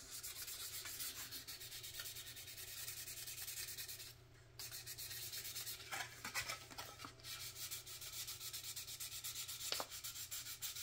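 Fine-grit sanding pad rubbed in quick back-and-forth strokes over a plastic model car body, wet-sanded with a little water. The strokes stop briefly about four seconds in, then carry on.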